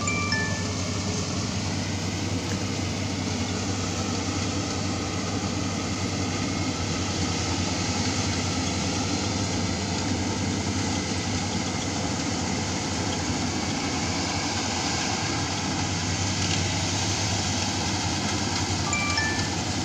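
Rice combine harvester running steadily as it harvests, a constant low engine hum with an even mechanical hiss over it.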